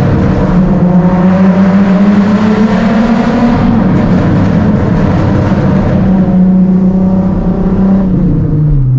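Nissan 370Z's 3.7-litre V6 running loud through a titanium Tomei cat-back exhaust with test pipes, pulling at a fairly steady engine speed. Its pitch eases down over the later seconds and drops lower near the end.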